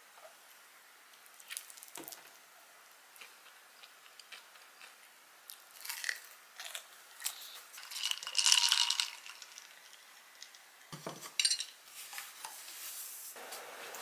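Ceramic plate, fork and knife and a glass mug being gathered up from a table: scattered clinks and taps of cutlery and dishes, with a longer, louder clatter a little past the middle and a dull thump around eleven seconds in.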